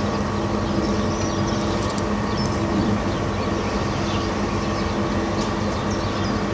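Steady low mechanical hum with a faint steady higher whine, and a few faint short high chirps.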